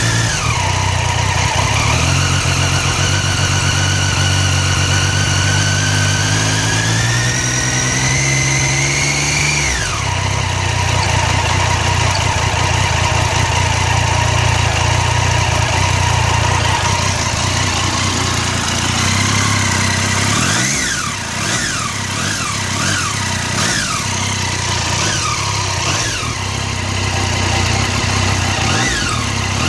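Triumph Street Triple R's 675 cc three-cylinder engine running. It is held at rising revs for several seconds and drops back to idle about ten seconds in. From about two-thirds of the way through it is blipped repeatedly, with quick rises and falls about once a second.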